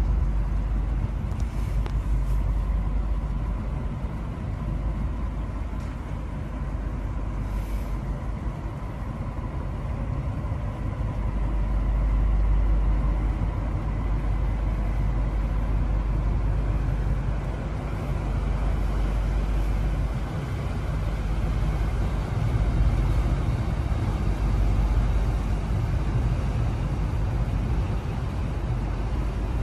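A tugboat's engines running with a steady low rumble while it manoeuvres, swelling and easing gently as power changes. A faint steady whine runs through it.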